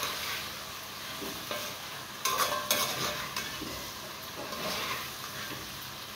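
Shrimp and diced seasonings sizzling as they stir-fry in a pot, with a cluster of sharp stirring scrapes a little over two seconds in.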